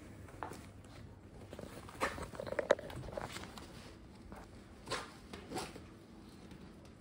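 Light handling noises: rustles, taps and clicks, clustered about two to three and a half seconds in, with two more taps around five and five and a half seconds.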